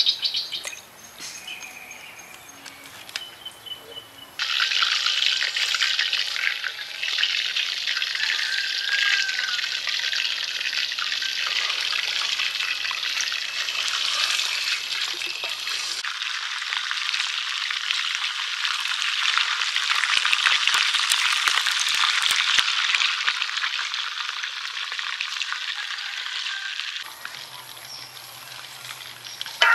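A whole fish frying in hot oil in an open pan: a loud, steady sizzle that starts suddenly about four seconds in.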